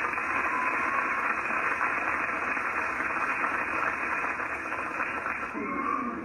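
Steady static hiss, easing slightly near the end.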